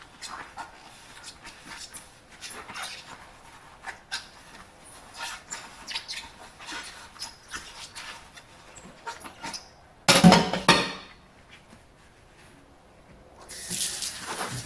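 Dishes being washed by hand: small clinks and scrapes of crockery and sponge, with a short loud burst about ten seconds in. Near the end the tap is turned on and water starts running into the sink.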